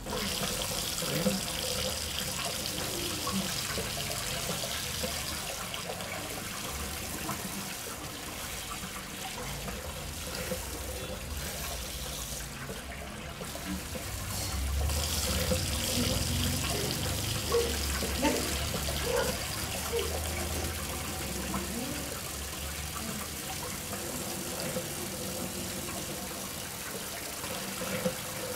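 Tap water running and splashing steadily.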